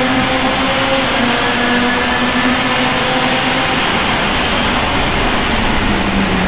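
Open-wheel race car's engine, recorded by its onboard camera, running at high revs along a straight. Heavy wind and road noise sit under it, and the pitch sags slightly toward the end.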